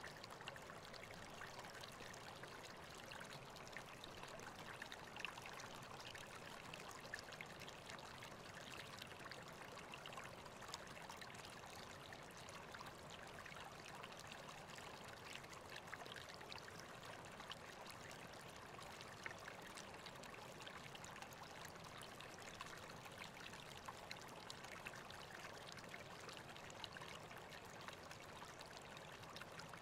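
Faint, steady rushing and trickling of flowing river water.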